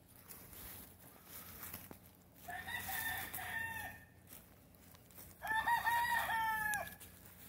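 A rooster crowing twice, the second crow louder than the first.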